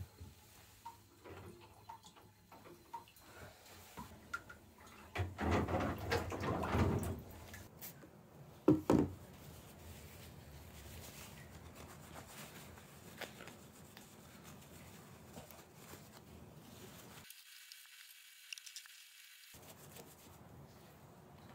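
Paper towel rubbing over a desktop hard drive and other computer parts on a countertop, with a few small clicks and knocks as the parts are handled. A louder stretch of rubbing comes about five seconds in, and there is a sharp knock near nine seconds.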